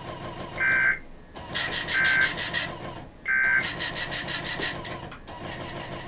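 Three short EAS/SAME end-of-message (NNNN) data bursts, each a buzzy two-tone warble about a third of a second long, spaced about 1.3 seconds apart, which close out the Amber Alert. Behind them is a crackly hiss of radio static that pulses in fast, even beats.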